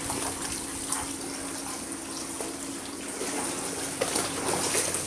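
Steady rush of water from a pool's return jet spraying into the pool, with a low steady hum beneath it and a few light splashes and laps of water.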